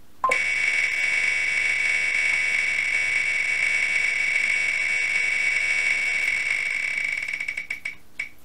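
A spinning name-picker wheel's ticking sound effect, played through laptop speakers. The ticks come so fast they merge into a steady buzz, then slow into separate clicks near the end as the wheel comes to a stop.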